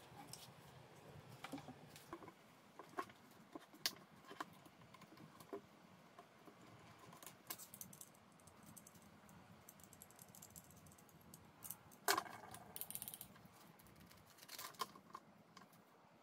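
Faint scattered clicks, taps and small rattles of an old angle grinder's metal and plastic parts being handled and taken apart by hand with a screwdriver. The loudest cluster of clicks comes about twelve seconds in.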